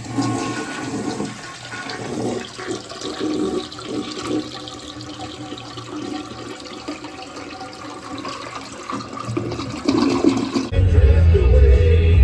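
Toilet tank running with water rushing through the fill valve, which will not shut off: the valve is failing and needs replacing. Near the end the water sound cuts off and music with a heavy bass beat starts.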